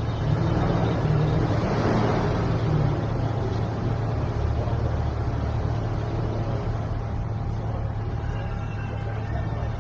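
Steady low mechanical hum with an even background rush, unchanging throughout.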